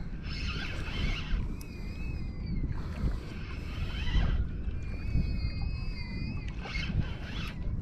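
Shimano Sahara spinning reel being cranked, its gears giving a thin high whine in spells of a second or two. Wind rumbles on the microphone underneath, with a few short bursts of hiss.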